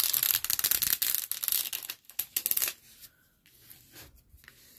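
Plastic scraper rubbed firmly over a diamond-painting canvas's clear plastic cover film, a rasping, crinkling scrape that stops about two and a half seconds in, leaving a few faint rustles. The canvas is being smoothed out to flatten it after being rolled.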